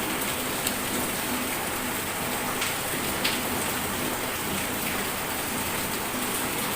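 Steady rain-like hiss, an even wash of noise, with a few faint ticks.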